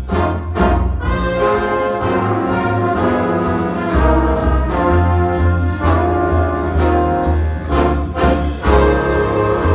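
A jazz big band playing, with a brass section of trumpets and trombones over heavy low notes and steady, evenly spaced drum strokes.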